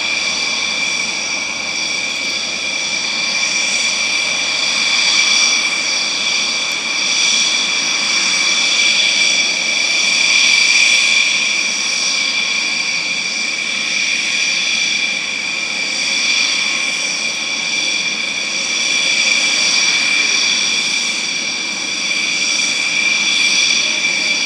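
Jet engines running with a steady high-pitched whine: several held tones over a rushing hiss, swelling and easing slightly.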